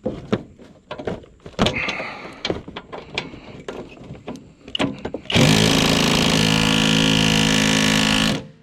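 Scattered metal clicks and knocks from tools working on a truck's hood hinge bolts. About five seconds in, a handheld power tool runs loud and steady for about three seconds, then stops abruptly.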